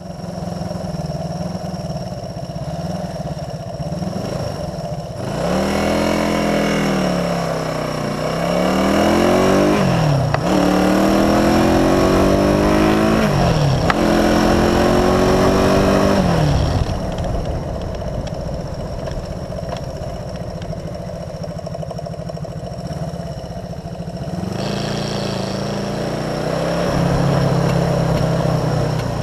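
Vintage Honda motorcycle engine heard from on the bike, pulling away and accelerating up through the gears: the revs climb and drop back at each of four upshifts. It then settles to a steady cruise and picks up again near the end, with a constant hiss of wind and road.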